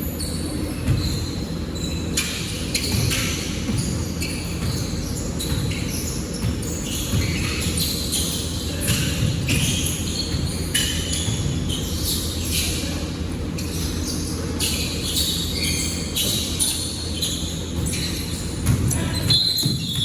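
Basketball game in a gym: a ball bouncing on the hardwood floor with irregular sharp thuds and short squeaks, over a steady echoing din of the hall.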